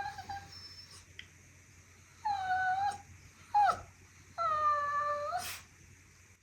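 Bichon Frise whining in high, kettle-like whistling tones. A brief whine comes at the start, a held whine about two seconds in, a short falling yelp, then a long whine that ends in a breathy huff.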